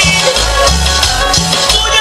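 Latin tropical dance music played loud over a sonidero sound system, with a heavy repeating bass line and percussion.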